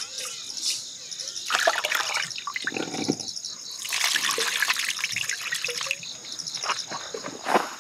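Rice being washed in a pot: water splashing and sloshing over the grains, then the cloudy rinse water pouring off onto the ground as the pot is tipped, with a few knocks near the end.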